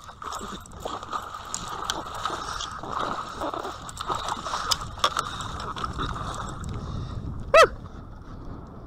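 Water splashing and sloshing beside a kayak as a large fish thrashes and is scooped into a landing net, with small clicks and rattles of gear. Near the end there is a short, loud, high-pitched cry.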